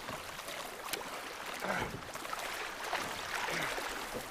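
Sea water splashing and sloshing around a man in the water as he hauls himself against a log raft, with a couple of short strained gasps.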